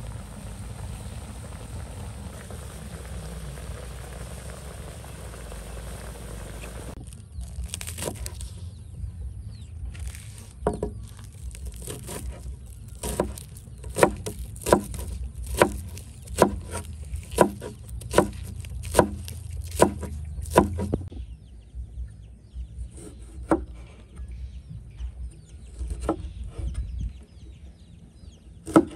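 A steady rush of outdoor wind noise, which cuts off about seven seconds in. It is followed by about a dozen evenly spaced chopping strokes, a little over one a second, like a blade chopping on wood, and then a few scattered fainter knocks.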